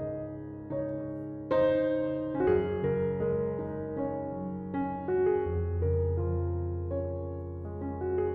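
Soft background piano music, gentle chords and melody at an easy pace.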